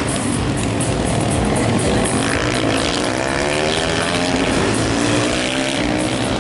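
Several small supermoto motorcycle engines revving up and easing off as the bikes take the corners of a tight circuit. Their pitches rise and fall and overlap.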